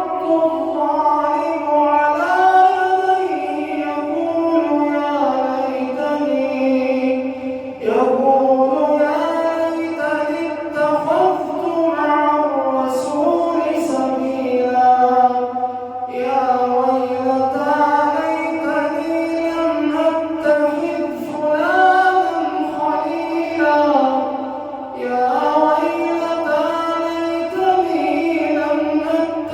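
A man's voice reciting the Quran in the melodic, drawn-out style of tajweed recitation. He sings long held phrases and breaks briefly for breath about 8, 16 and 25 seconds in.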